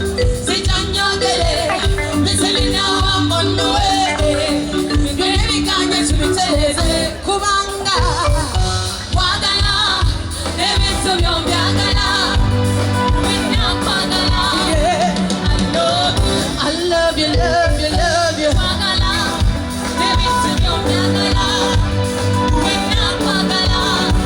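Live band music with a steady bass beat and a woman singing over it, in a Latin-flavoured dance style.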